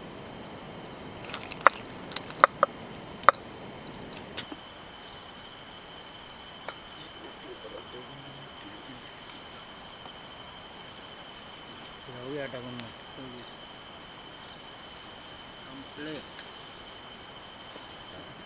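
Crickets and other night insects trilling steadily, louder for the first four seconds or so. A few sharp clicks or knocks come in the first three seconds, and faint voices are heard later.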